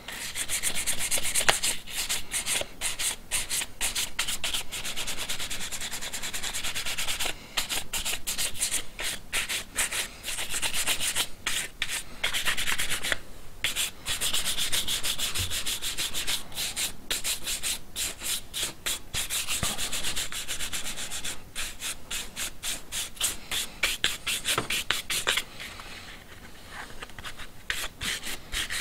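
Stiff bristle brush scrubbing over leather, working mink oil into the finish: rapid back-and-forth strokes, pausing briefly a few times.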